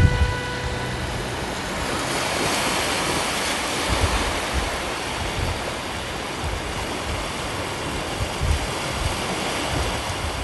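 Low surf washing onto a flat sandy beach, a steady rushing sound. A held tone carried over from before fades out in the first second or two.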